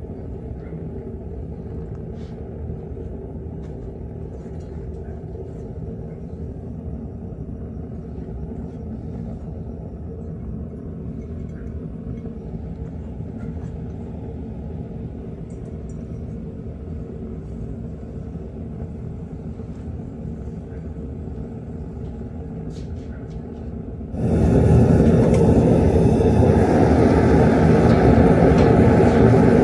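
Propane burner of a small metal-melting furnace running with a steady low roar, heating a crucible of aluminum scrap. About 24 seconds in it becomes much louder.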